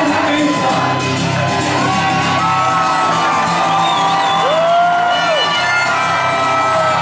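Harmonica solo played cupped against a vocal microphone over strummed acoustic guitar, with the crowd shouting and whooping; about halfway through, a held note bends up and back down.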